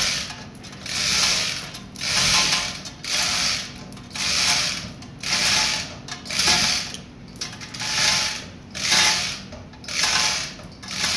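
Hand-operated chain hoist ratcheting in regular strokes, about one a second, as it lifts a gearbox's gear shaft assembly out of the casing.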